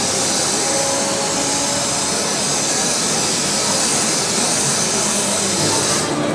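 Dyson DC31 Animal handheld vacuum cleaner running at full suction while its brush nozzle is drawn over a mat: a steady, high-pitched rush of air and motor that stops abruptly near the end.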